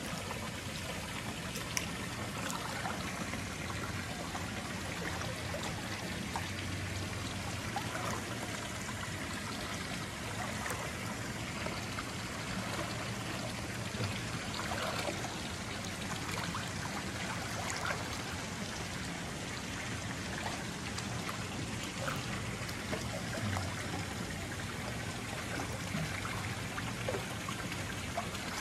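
Water pouring from small spouts into a swimming pool: a steady trickling splash, with occasional small splashes at the surface.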